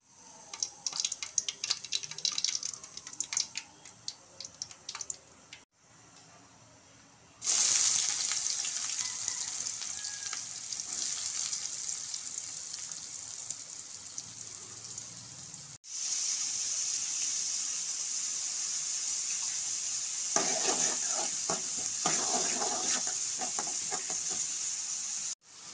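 Hot oil crackling and popping in an aluminium kadai. About seven seconds in, chopped onions hit the oil and a loud, steady sizzle starts suddenly. Later the onions keep frying while a spatula scrapes and stirs them against the pan in repeated strokes.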